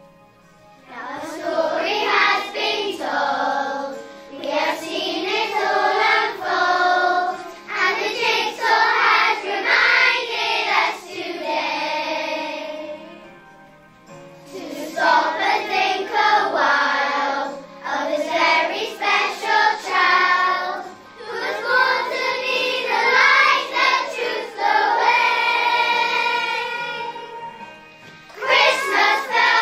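A children's choir singing a song from a Christmas musical together over an instrumental accompaniment. The singing comes in about a second in, in phrases with short breaks between them and a longer break around the middle.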